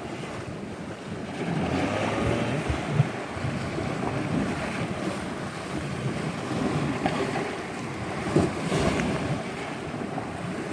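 Wind buffeting the microphone over waves washing on the shore, with a dull knock about three seconds in and another near the end.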